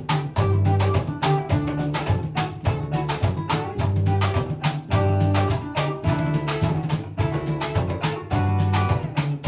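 Upbeat band music played on instruments made from trash: a steady drum and percussion beat, a bass line and plucked strings.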